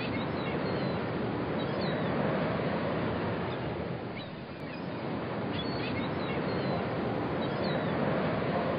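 Steady wash of sea surf on a beach, easing slightly about halfway through, with a few short high bird chirps over it.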